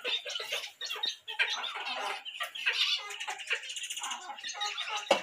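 Many small aviary birds chirping and twittering at once, their calls overlapping. A sharp knock sounds near the end.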